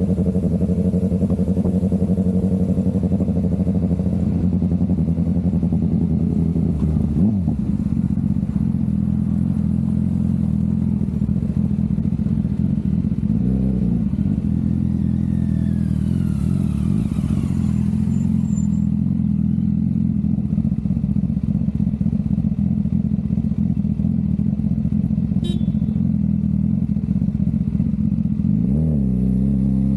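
BMW S1000RR inline-four engine running at a steady cruise, heard close up through an Insta360 camera's built-in microphone, with wind hiss. The engine note dips briefly as the throttle eases about seven seconds in and again around halfway, then drops and climbs again near the end.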